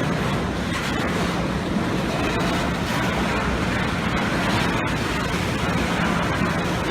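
A slow-moving freight train rumbling past in a steady, even wash of noise, with a low steady drone underneath.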